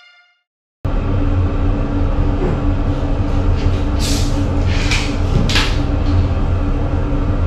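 Screw cap twisted off a plastic bottle of sparkling water, the gas escaping in three short hisses in the second half. Under it runs a steady low rumble.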